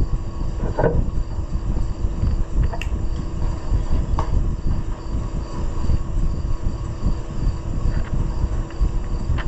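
A steady low mechanical rumble with a constant hum, with a few faint clicks and taps of small handling noises.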